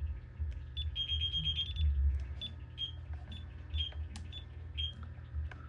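DSC Impassa alarm system sounding after its zone 3 shock sensor was tripped: intermittent high-pitched electronic beeps and short held tones, repeating. A low hum runs underneath.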